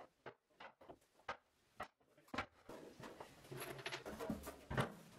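Scattered light knocks and scuffs of a solid red oak benchtop being handled and fitted over a laundry base cabinet, with a louder knock near the end.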